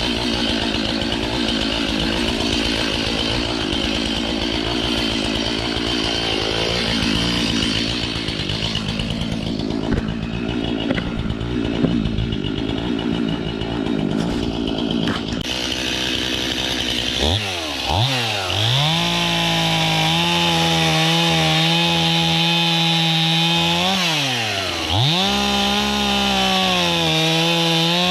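Two-stroke chainsaw running hard, cutting wood with a dense, rough sound. Later it holds a steady high engine note, and its pitch drops sharply and climbs back twice as the revs fall and rise again.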